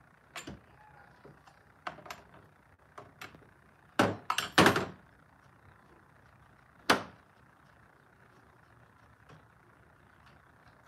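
Sharp clacks and knocks of hands and tools working on a Stihl 201 chainsaw: a few light clicks at first, a loud cluster of knocks about four seconds in, and one more sharp knock about seven seconds in.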